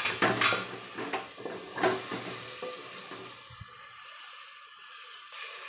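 Wooden spatula stirring and scraping potato slices, bottle-gourd stems and red lentils frying in oil in an aluminium pot, with several scrapes in the first two seconds. The stirring then stops, leaving the soft sizzle of the frying, which fades near the end.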